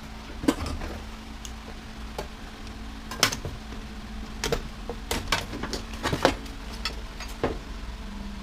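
Scattered light clicks and clanks of metal parts and hand tools being handled while a washer/dryer is taken apart, the sharpest knocks about three and six seconds in, over a steady low hum.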